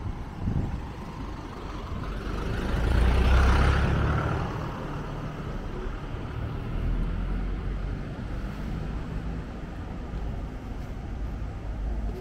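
A motor vehicle passing close by on a city street, its noise swelling to a peak about three to four seconds in and then fading, over a steady low rumble of traffic.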